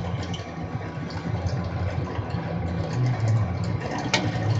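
Drill press running with the bit cutting into the workpiece under hand feed, a steady low motor hum that shifts in pitch about three seconds in, with one sharp click near the end. The deeper the hole gets, the more the bit starts to grab.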